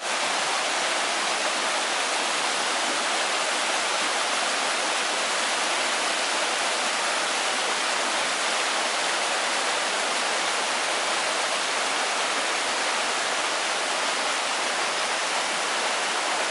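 Mountain stream running over rocks and small rapids: a steady, even rush of water.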